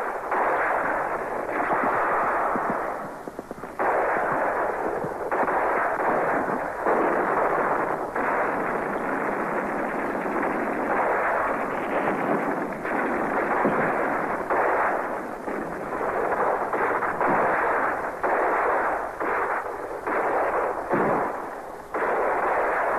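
Battle sound effects from an old film: dense, near-continuous gunfire and explosions, dull and muffled as from a worn tape, with a short lull about three seconds in.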